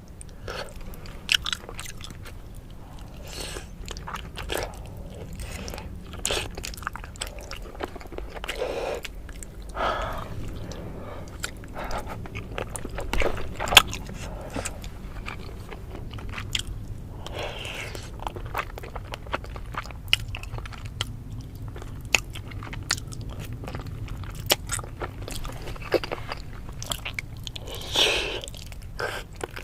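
Close-miked eating: a person biting and chewing crunchy food, with many short, sharp crackles and a few louder, longer bites.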